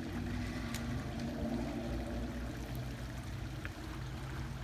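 Creek water flowing steadily, with a low steady hum underneath.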